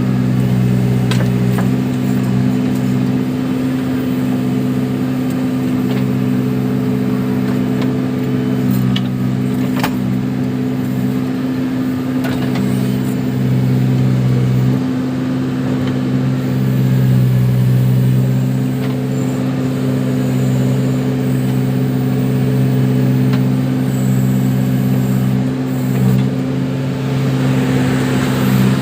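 Diesel engine of a Case 580 Super backhoe loader running steadily under varying load while it digs and dumps mud, with a few faint clanks from the bucket and arm.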